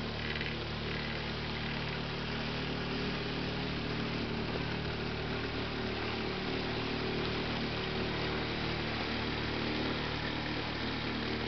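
A small motorboat's engine running steadily at an even speed, with a steady hiss underneath.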